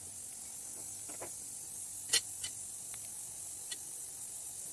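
Steady hiss of a pot simmering on a gas stove, with a few light clicks and taps, the loudest about two seconds in, as dried apricots are dropped by hand into the bubbling fruit syrup.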